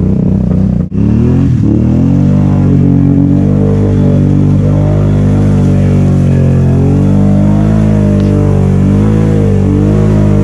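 Can-Am Outlander XMR 570's V-twin engine running hard under load as the ATV ploughs through mud and water, revs rising and falling, with a momentary dip in the sound about a second in.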